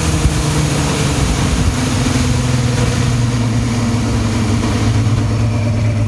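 Older Mercury outboard motor running steadily on its replaced switch box (power pack), with wind noise on the microphone. Its note settles to a slightly lower, even pitch about two seconds in.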